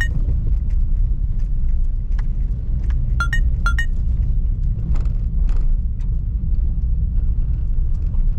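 Low steady rumble of a small car, heard from inside the cabin as it drives slowly over a gravel campsite track, with faint ticks from the tyres on the gravel. Short electronic blips sound once at the start and three times about three seconds in.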